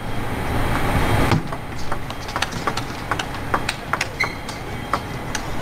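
A crowd cheering, cut off abruptly about a second and a half in. Then a table tennis rally: the celluloid ball clicking sharply off the bats and the table every few tenths of a second.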